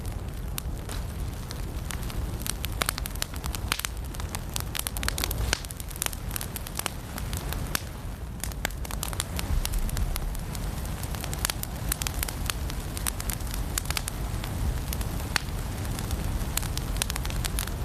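Firewood burning in a fireplace, crackling and popping with many sharp, irregular snaps over a steady low rush of the flames.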